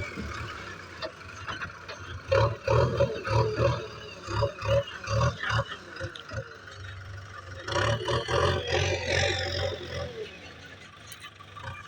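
Backhoe loader's diesel engine running and revving in uneven surges as it works, with a low pulsing throb.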